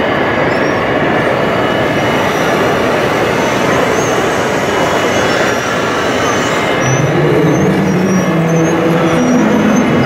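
Radio-controlled scale construction models running on a dirt course, giving a steady mechanical whirring and grinding. About seven seconds in, a pitched motor hum starts and shifts between steady notes.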